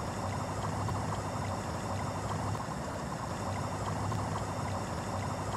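Water boiling in a glass laboratory beaker: a steady bubbling with many small pops, over a low hum.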